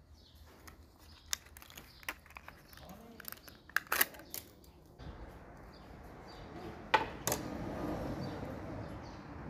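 Plastic and card packaging of a new distributor contact point set crinkling and clicking as it is opened by hand. The clicks are loudest about four seconds in, with two sharper clicks about seven seconds in.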